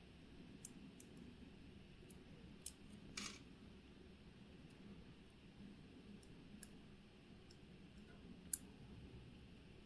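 Faint, scattered clicks and taps of small watchmaking tools on the parts of a watch movement being taken apart, with a brief scrape about three seconds in and a sharper click near the end.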